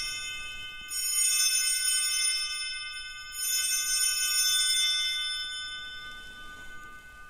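Altar bell struck twice at the elevation of the consecrated host, about a second in and again about two and a half seconds later. Each strike rings on in several clear high tones that slowly fade away.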